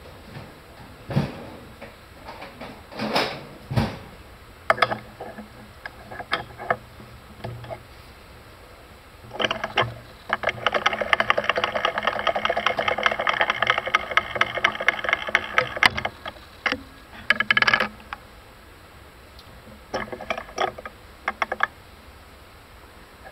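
Metal knocks and clanks from the lathe's tool post being loosened, swung and set to 45 degrees, with a run of rapid metallic clicking for about six seconds midway and a few lighter clicks near the end.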